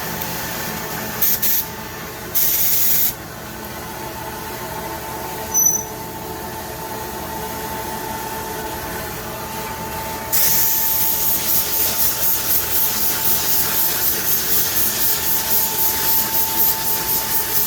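SATA X5500 paint spray gun spraying paint: two short bursts of hiss in the first few seconds, then a long spray from about ten seconds in that flutters about three times a second. A steady background hum with a constant tone runs underneath.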